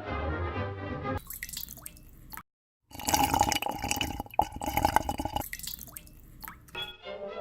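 Dripping, spattering water sound effects, after about a second of music and a brief moment of dead silence; music comes back near the end.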